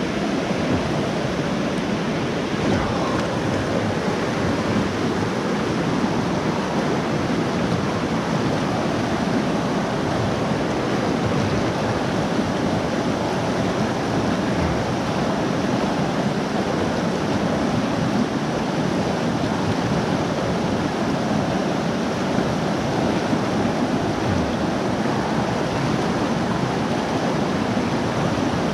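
Steady rush of river water, a constant even roar of flowing current.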